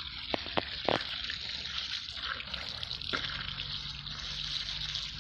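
Garden hose water jet hissing and splashing on wet ground and against an otter's face as it drinks from the stream. There are a few sharp splats in the first second and another about three seconds in.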